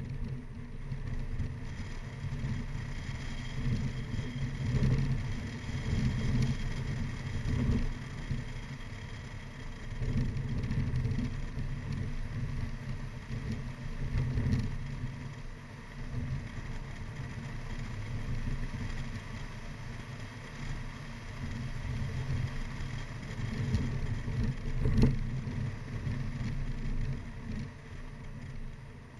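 Mini Cooper R55 Clubman being driven briskly on a winding road, heard through a GoPro mounted on the car's exterior. Wind buffets the microphone as a low rumble over the engine and tyre noise, and it swells in gusts several times.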